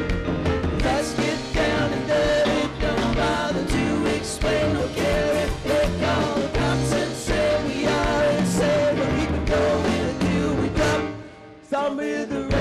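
A live band playing an electric guitar and keyboards over drums. The music drops away briefly near the end, then comes back in.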